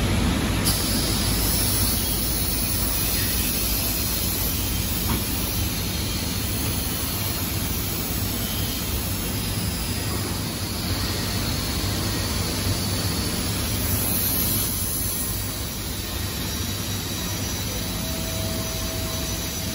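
Steady hum and hiss of door assembly line machinery running, with no single sound standing out; a faint steady tone joins near the end.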